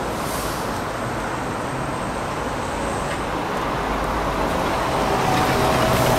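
YuMZ T2 trolleybus driving past close by amid street traffic, its tyre and running noise growing louder as it draws near, with a faint whine in the last couple of seconds.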